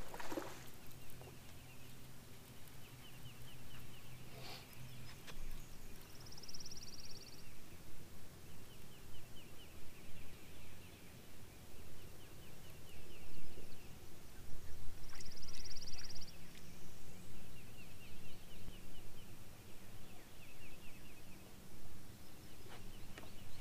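Wildlife calling across a lake: short trilled calls repeat over and over, and twice a higher buzzing call lasts about a second and a half, all over a low steady hum.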